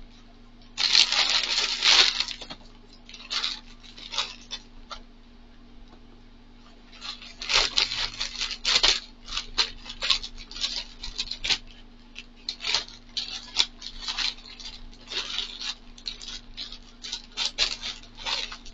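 Grey plastic poly mailer bag being opened and handled, its plastic crinkling and rustling in irregular bursts: a loud stretch about a second in, then a long run of short crackles from about seven seconds on.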